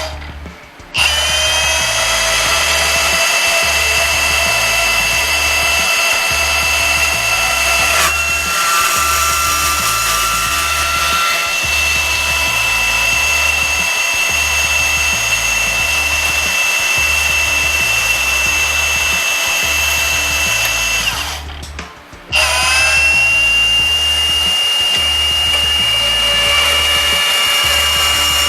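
A cordless power tool's electric motor running with a steady high whine. It spins up about a second in, stops briefly a little after 21 s and spins up again. Background music with a steady beat plays underneath.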